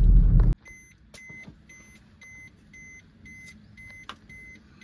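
In-car engine and road rumble that cuts off suddenly about half a second in, followed by a quiet, steady electronic beeping of about two to three beeps a second from a car's dashboard warning chime.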